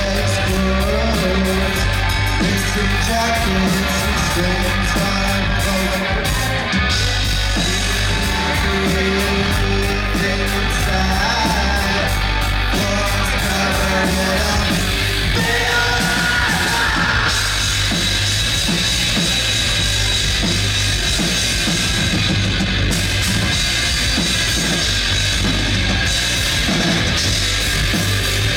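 Loud heavy rock music with drum kit, guitar and singing, playing steadily without a break.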